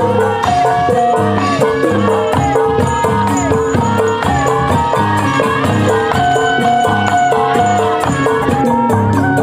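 Kuda kepang accompaniment music: a melody of held notes stepping from pitch to pitch over steady drumming and rattling percussion.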